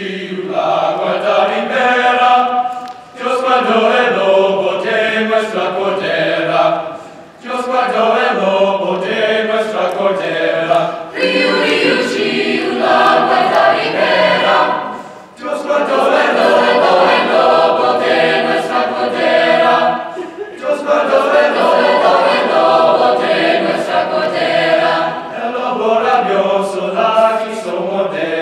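Mixed choir singing a cappella in Spanish, in phrases of about four seconds with short breaths between.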